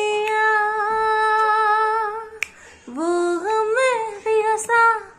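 A woman singing unaccompanied, holding one long steady note for about two seconds, then a run of gliding, ornamented phrases. A single sharp click sounds between them, about two and a half seconds in.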